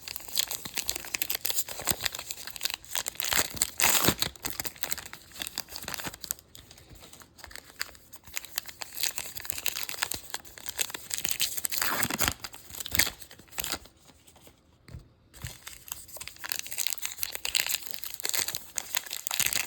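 A trading-card pack wrapper being torn open and crinkled, with irregular tearing and crackling rustles that pause briefly near the end.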